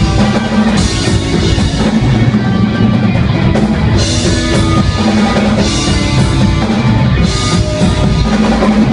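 Rock band playing: a drum kit with bass drum and cymbal crashes, and guitar.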